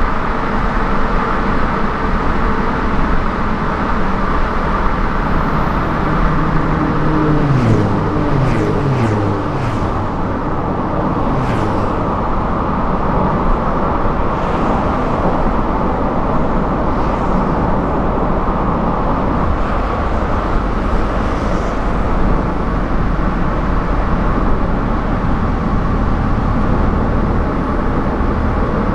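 Steady road and tyre noise of a car driving on a highway. About seven to ten seconds in, an engine note falls in pitch and fades.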